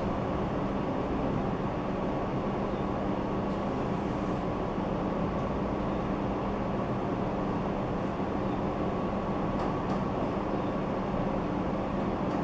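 Steady background hum and noise with a few faint steady tones and no distinct events: room ambience.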